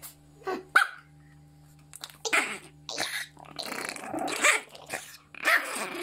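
Small terrier growling and snarling in noisy bursts over a chew bone it is guarding, after two short yaps in the first second.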